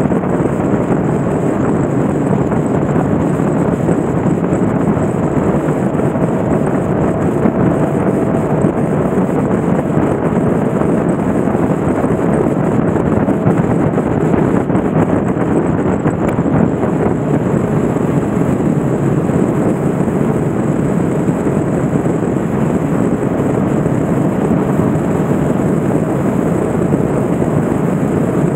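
Steady rush of wind on the microphone of a riding motorcycle, blended with the bike's engine and road noise.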